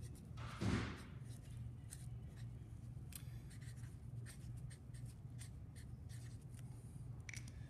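Marker pen writing on a masking-tape label stuck on a fabric parachute bag: many short, scratchy pen strokes, with one louder brief swish about half a second in. A faint low hum runs underneath.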